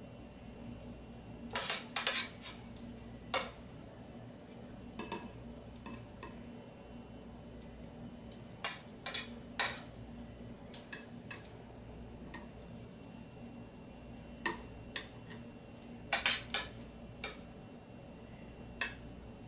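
Metal tongs clinking against a stainless steel skillet and a ceramic plate as sauced chicken wings are lifted out and plated: scattered sharp clinks, often two or three in quick succession, over a low steady hum.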